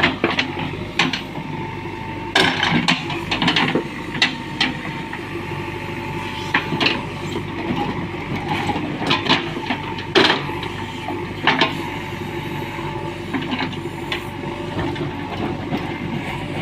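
JCB 3DX backhoe loader's diesel engine running steadily, with irregular sharp metallic clanks and knocks scattered throughout, several close together about two to four seconds in and around nine to ten seconds in.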